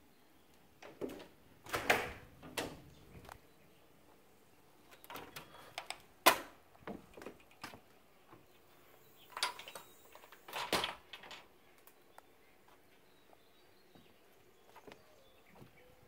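Scattered knocks, clicks and clatters in three short clusters as a door is worked and someone steps out onto a wooden deck, the sharpest knock about six seconds in.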